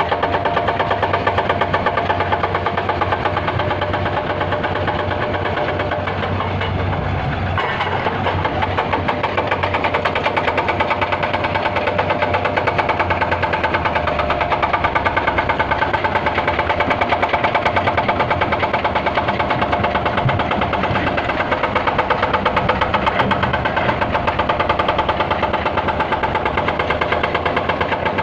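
Large diesel engine of an excavator or dump truck running steadily with a fast, even pulse; its note shifts about seven seconds in.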